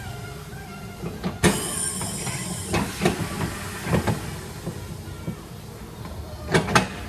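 A series of metallic clanks and knocks over a steady low rumble; the loudest, about a second and a half in, rings on briefly, and a quick pair comes near the end.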